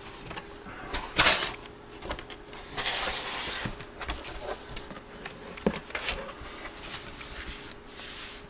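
Large photo packaging being handled: plastic and cardboard rustling and scraping in several bursts, the strongest about a second in and a longer one around three seconds, with a few sharp clicks, loud and harsh on the microphone.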